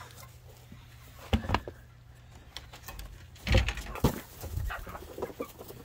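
Backyard hens clucking as they crowd round pans of feed, with a few sharp knocks: one about a second and a half in and a louder cluster about three and a half seconds in.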